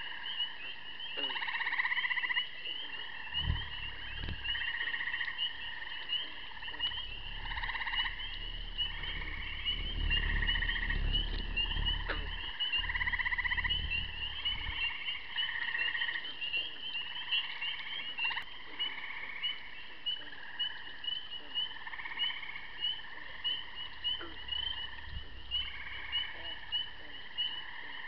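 Frogs calling in a pond chorus: a continuous high trill with lower calls repeating every second or two. A low rumble runs under it for several seconds in the first half.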